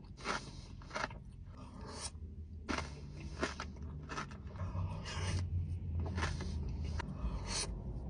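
Close-miked chewing of crunchy strawberry chocolate pistachio knafeh: irregular crisp crunches, one or two a second.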